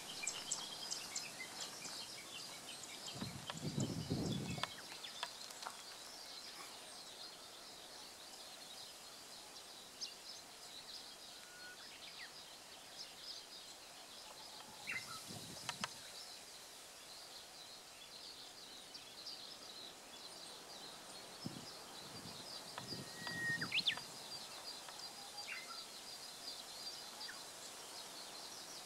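Countryside ambience in which a very distant common cuckoo calls faintly, under a steady high chatter and scattered small-bird chirps. There are a few low rumbles near 4 s, around 15 s and 22–24 s, and a sharp rising chirp just before 24 s.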